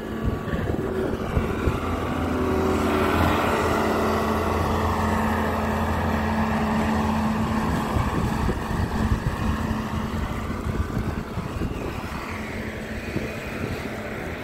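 A motor vehicle's engine running nearby with a steady low hum, swelling a couple of seconds in and fading away toward the end.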